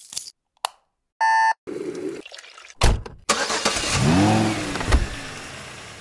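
A sequence of car sounds: a sharp click, a short electronic beep, a heavy thump, then a car engine bursting into life and revving up and back down, with a knock near the end.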